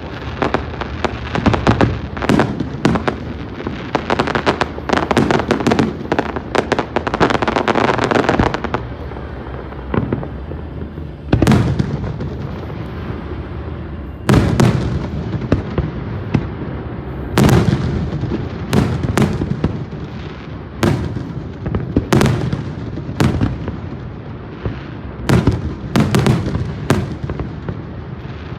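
Aerial fireworks bursting: a dense run of rapid bangs and crackling for about the first eight seconds, then single loud booms every second or two.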